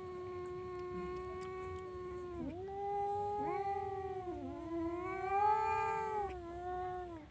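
Cat yowling: one long, drawn-out wavering call with brief dips in pitch, louder in its second half, stopping just before the end.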